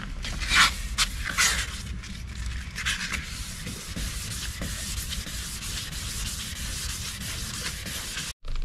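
Sandpaper rubbed back and forth over a plastic car headlight lens, a steady scratchy rasp of quick strokes with a few louder strokes in the first few seconds, as the scratches in the weathered lens are sanded out. The sound breaks off for a moment near the end.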